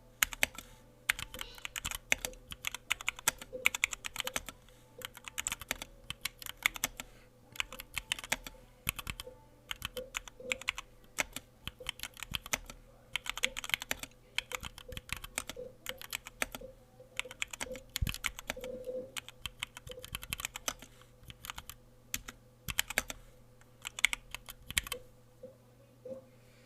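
A modded HyperX Alloy Origins 60 mechanical keyboard being typed on at typing-test speed: fast, irregular key clicks in runs with short pauses. The typing stops a little before the end.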